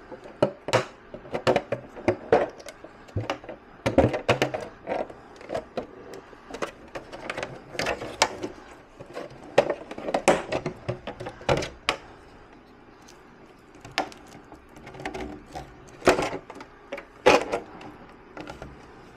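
Irregular clicks, knocks and rustling from handling a 1/10-scale RC rock crawler over its cardboard box, as the plastic body and chassis are turned over and the body is taken off.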